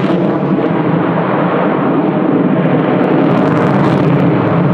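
Fighter jet's engines running at high power as it flies overhead: a loud, steady rushing noise.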